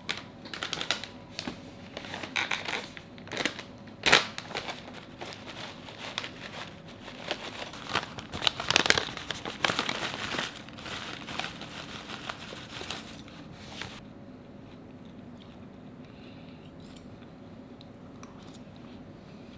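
A plastic snack pouch crinkling while dry seaweed flakes rustle out of it and are scooped with metal tongs onto a bowl of rice, with many small clicks and a sharp click about four seconds in. The handling stops about two-thirds of the way through, leaving quiet room tone.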